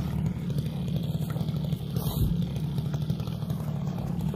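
Two-stroke brush-cutter engine, rigged as a longtail boat motor, running steadily at an even pitch.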